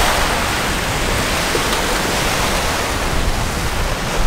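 Small sea waves washing over rocks and a pebble shore: a steady rushing hiss of surf.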